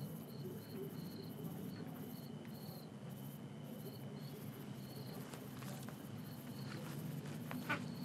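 Crickets chirping in short, high pulses, a couple per second, over a thin steady high tone and a low hum.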